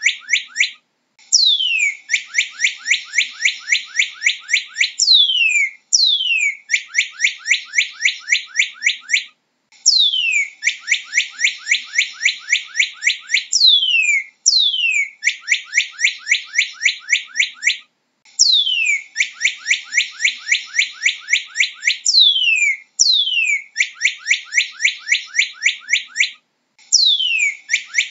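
Northern cardinal singing in repeated phrases with short pauses between them. Each phrase opens with one or two long down-slurred whistles and runs into a fast series of short down-slurred notes, about four a second.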